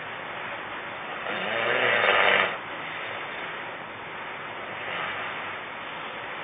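A man snoring in his sleep: one loud snore about a second and a half in, lasting about a second, then a fainter breath near five seconds, over a steady hiss.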